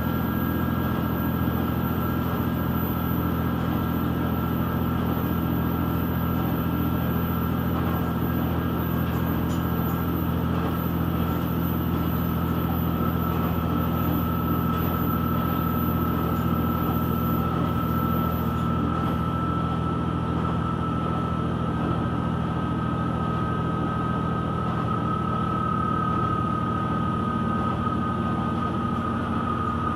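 KiHa 120 diesel railcar under way, heard from inside the passenger cabin: a steady diesel engine drone with running noise and a high whine that sinks slowly in pitch.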